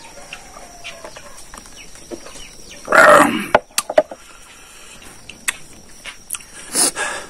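A man burps loudly once, about three seconds in, after a sip from a shot glass, followed by a few wet mouth clicks and smacks of eating.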